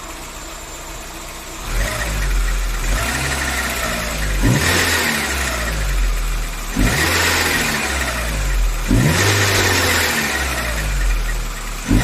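Volkswagen AP 1.6 engine running, quiet at first, then revved up and down several times from about two seconds in. The noise being investigated, which the owner suspects is the timing belt cover rubbing, has practically stopped.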